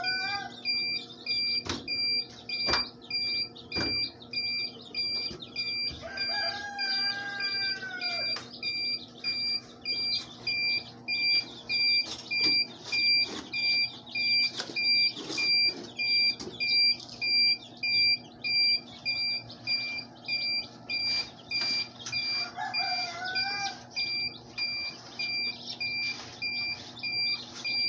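Newly hatched Rhode Island Red chicks peeping continuously in a crowd. A rooster crows in the background, about six seconds in and again near the end, and an electronic beep repeats steadily.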